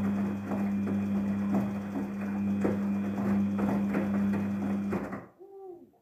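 Daewoo DWD-FT1013 front-loading washing machine tumbling its wet load in a 40°C cotton wash: a steady motor hum with water sloshing and laundry dropping in the drum at a regular beat. The drum stops abruptly about five seconds in.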